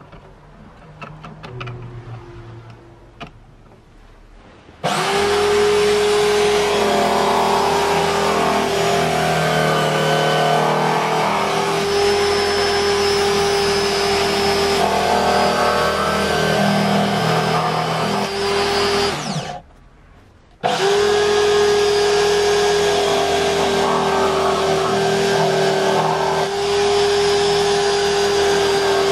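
Electric drill motor starting up about five seconds in and running at a steady speed. It winds down to a stop a little before the twenty-second mark, starts again about a second later and runs on. A few light handling clicks come before the first start.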